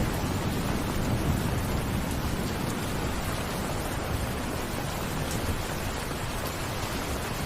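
Steady rain falling, an even hiss of drops. A low rumble underneath is strongest in the first couple of seconds and then eases off.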